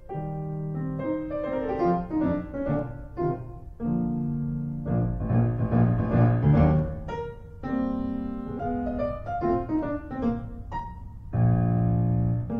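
Piano music: a run of single notes and held chords.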